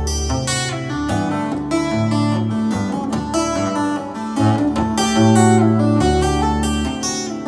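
Solo acoustic guitar played live: quick, ringing treble notes over low bass notes that are each held for about a second.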